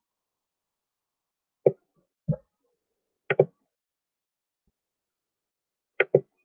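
About six short, sharp taps at irregular intervals, two of them coming as quick pairs, with dead silence between them.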